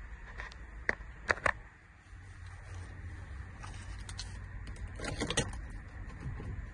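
Keys jangling and clicking in a Ford Transit van's cab, with a few sharp clicks early and a denser rattle of keys about five seconds in as the key is turned to switch the ignition on.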